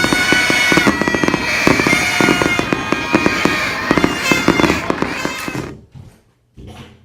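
Fireworks and firecrackers going off in a dense run of rapid pops and crackles over held, steady tones, dying away about six seconds in.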